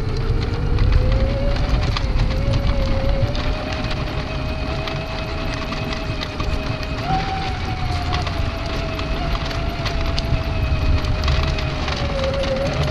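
Small electric motor of a radio-controlled model truck whining steadily, its pitch drifting slightly and rising briefly about halfway through, over a rumble of small tyres rolling on rough asphalt.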